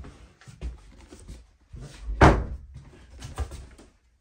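A door being opened and handled: several knocks and clacks, with one loud bang about two seconds in.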